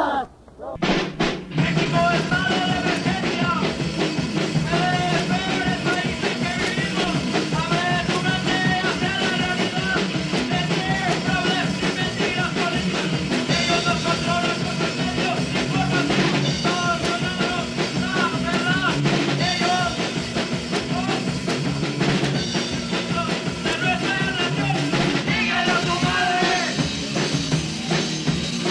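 Punk rock song by a band with drum kit: after a brief dip and a few hits, the full band comes in about a second and a half in and plays on steadily.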